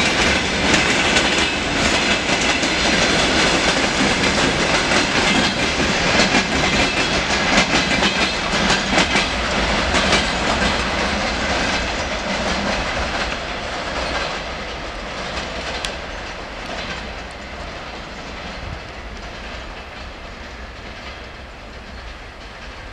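Freight train of tank cars and boxcars rolling past, its wheels clacking over the rail joints, then fading steadily as the end of the train moves away over the second half.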